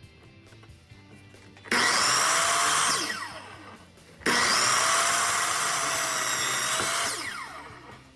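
A power tool runs twice, first for about a second and a half and then for about three seconds. Each time its motor winds down with a falling whine once released.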